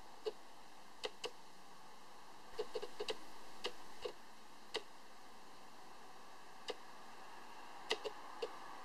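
Faint steady room hiss with about a dozen short, sharp clicks at irregular times, several coming in quick clusters.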